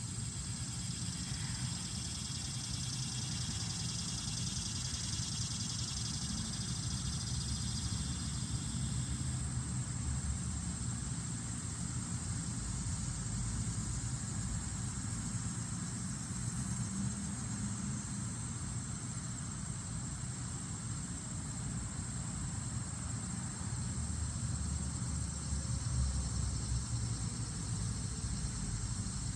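Steady low rumble of distant traffic with the high, continuous chirring of insects over it. The chirring is loudest for the first several seconds, then fainter.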